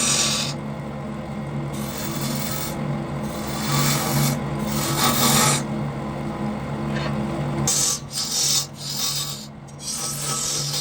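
Wood lathe running with a steady motor hum while a cutting tool scrapes against the spinning wood in repeated passes of about a second each; the strokes become shorter and choppier near the end.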